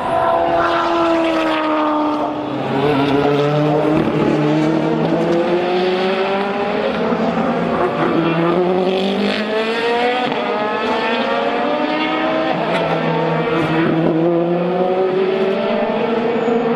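GTE-class racing car engines at full throttle, the pitch climbing steadily and falling back at upshifts about every six seconds.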